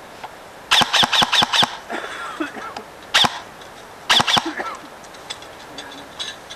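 Airsoft electric rifle fired in short strings of sharp shots: five quick ones, a single one, then three more.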